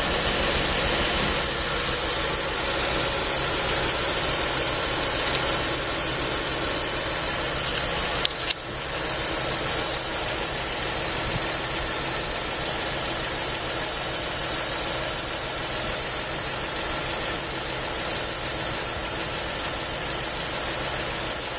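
A steady, high-pitched hiss with a low rumble underneath. It dips briefly about eight and a half seconds in.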